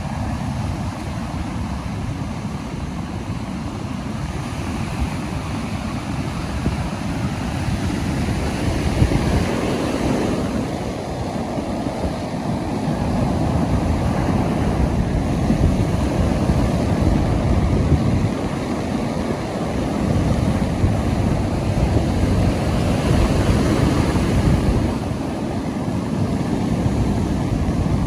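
Ocean surf breaking and washing up a sandy beach: a continuous rush that swells louder every several seconds as each wave comes in.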